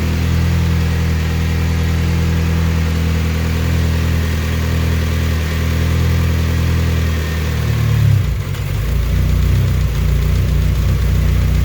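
Freshly rebuilt turbocharged Honda D16Z6 SOHC four-cylinder idling high while cold. About eight seconds in, the idle drops and settles lower as coolant reaches the idle control valve.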